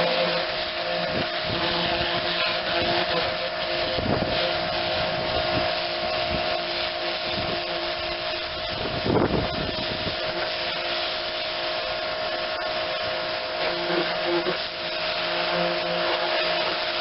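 Small pressure washer running, its motor and pump humming steadily under the hiss of the spray, with a brief louder burst of spray about nine seconds in.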